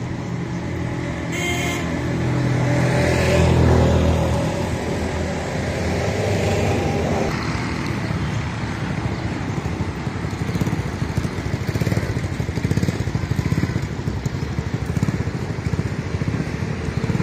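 A vehicle engine running close by, loudest about three to four seconds in and fading away by about seven seconds. Steady street traffic noise follows.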